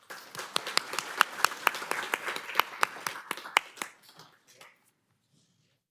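Audience applauding, sharp individual claps standing out, dying away about four to five seconds in.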